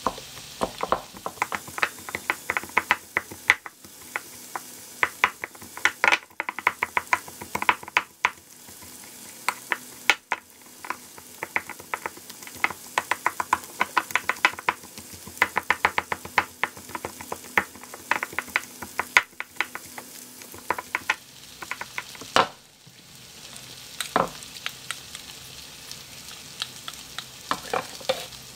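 Wooden pestle pounding and mashing cooked white beans in a wooden bowl: quick runs of sharp knocks, several a second, broken by short pauses.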